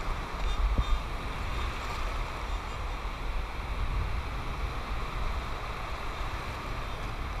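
Wind rumbling on the microphone over shallow surf washing around, a steady outdoor wash of noise.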